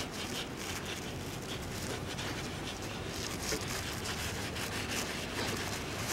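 A cloth rag wiping oil drips off the underside of the engine oil pan around the drain plug: soft, steady rubbing and scuffing strokes.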